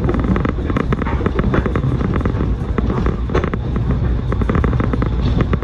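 Metro-North commuter train running at speed, heard from inside the car: a steady low rumble with a rapid, irregular clatter of the wheels on the track.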